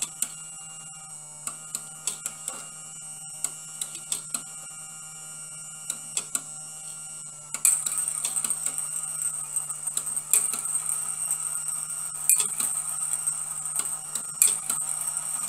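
Battery-powered brass marble machine running: a small motor's steady whine under steel balls clicking and rattling against the brass tower and track. The clicks are sparse at first, then become louder and much busier about seven and a half seconds in.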